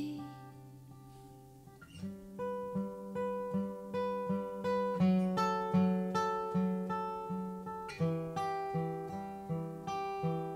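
Acoustic guitar played between sung lines: the last chord dies away over the first two seconds, then steady strummed chords come in about two seconds in, at about two or three strokes a second.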